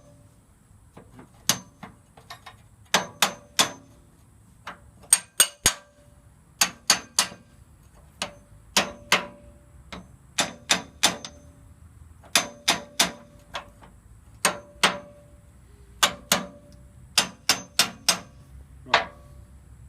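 Hammer tapping on metal, in quick runs of two or three blows with short pauses between, each blow with a brief ring. A part is being tapped through into a John Deere 4520 loader's bucket hydraulic cylinder during a seal rebuild.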